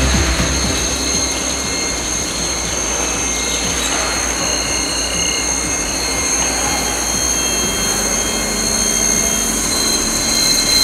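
A CNC gantry milling machine drilling S355 steel with a 20 mm indexable-insert drill at 1900 rpm under flood coolant: a steady hiss of cutting and spraying coolant with high, steady whining tones.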